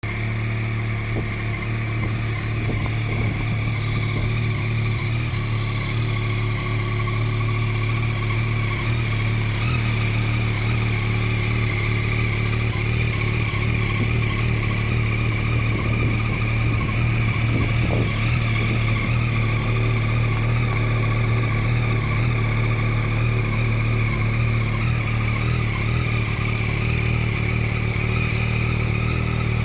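Yamaha MT-09 SP's 890 cc inline three-cylinder engine idling steadily, with no revving.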